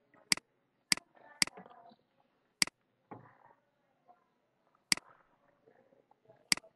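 Six sharp computer mouse clicks at uneven intervals, the presenter clicking to deselect text and switch between windows.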